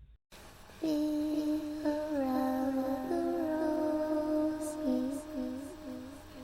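A wordless humming melody in a music track: slow held notes that step up and down in pitch, starting about a second in and cutting off just before the end.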